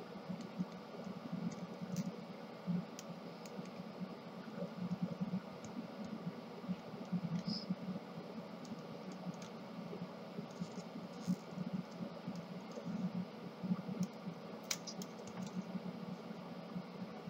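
Small irregular plastic clicks and scraping as a screwdriver pries at a Kyocera M5526 developer cartridge, with a few sharper snaps among them. The part comes away stiffly because hardened toner is lodged inside.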